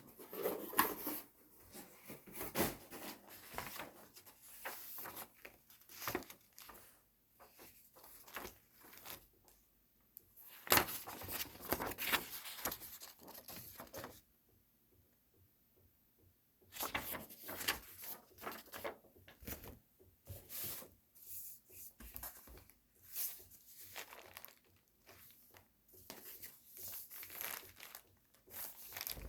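Unboxing of a Samsung Galaxy S22 Ultra: irregular tearing, crinkling and rustling of the box's paper and plastic packaging, in short bursts. The sound drops out completely for about two seconds halfway through.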